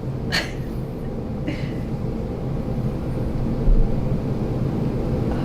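A steady low hum runs throughout. Two short breathy swishes come near the start, and a dull low thump falls a little past the middle.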